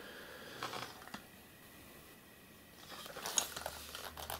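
Faint handling noise as the cast-aluminium meter case is turned over in the hands: light rubbing and small knocks, with one click about a second in and more knocks and rubbing in the last second and a half.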